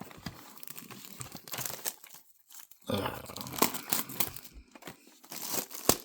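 Plastic wrapping on a trading-card box crinkling and tearing as the box is unwrapped, in irregular crackles with a sharp snap near the end.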